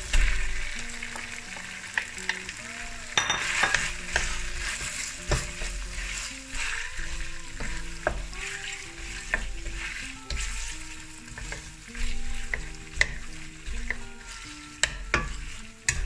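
Slices of boiled pork dropped into hot oil in a wok, sizzling loudly as they go in, then frying steadily while a wooden spatula stirs and turns them. Scattered clicks and scrapes of the spatula against the pan.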